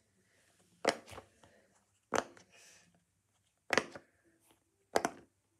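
Silicone pop-it fidget toy being pressed, its bubbles popping with short, sharp pops about one every second or so, five in all, the last two close together.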